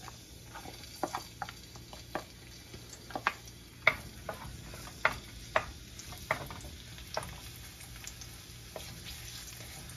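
Minced garlic frying in oil in a nonstick pan, a faint steady sizzle under irregular sharp clicks and pops as a wooden spatula scrapes the garlic off a plastic dish and stirs it in the pan.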